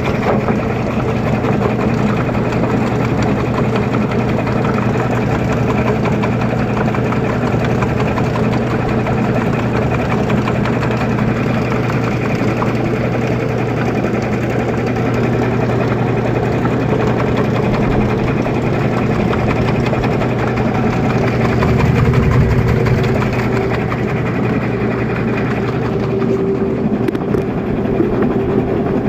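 LG Fuzzy Logic TurboDrum 14 kg washing machine in its spin cycle: a steady motor-and-drum hum, with a higher whining tone that grows stronger in the last few seconds.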